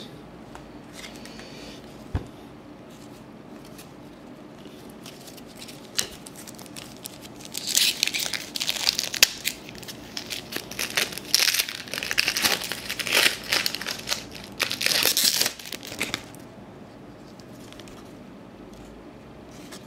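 A foil-wrapped 1996-97 Topps basketball card pack being torn open, its wrapper crinkling and crackling for about eight seconds in the middle, after a couple of light taps.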